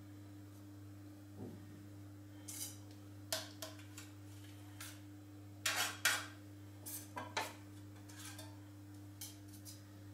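Metal offset spatula and bench scraper scraping across a granite countertop and against each other while spreading chocolate thin: a string of short scrapes and clicks, loudest about halfway through.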